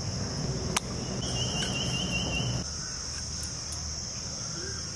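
Steady high-pitched drone of insects chirring in the grass, with a shorter trill joining for about a second and a half and a single sharp click about a second in.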